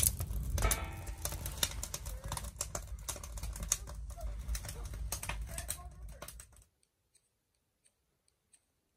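Wood fire crackling inside a wood stove, many quick irregular snaps over a low rumble. It cuts off suddenly near the end, leaving near silence.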